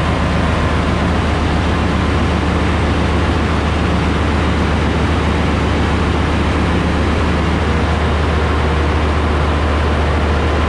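Ship's engine-room machinery running: a loud, steady low drone with a constant hum and no change throughout.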